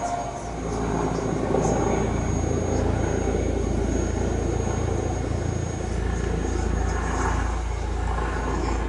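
Eurocopter EC135 twin-turbine helicopter flying low on its landing approach. Its steady rotor noise grows louder about a second in and then holds, with a thin high whine over it.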